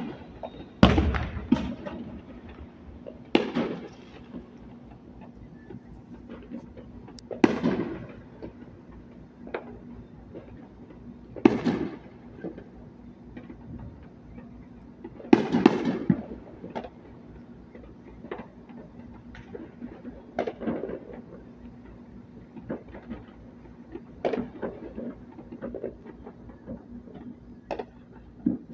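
Aerial fireworks bursting: a loud bang every few seconds, each trailing off in an echo, with two close together about halfway through and smaller pops between them and toward the end.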